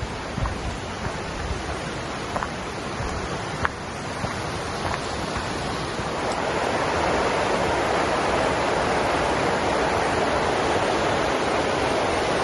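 Rushing creek water running steadily, growing louder about halfway through, with a few faint ticks in the first few seconds.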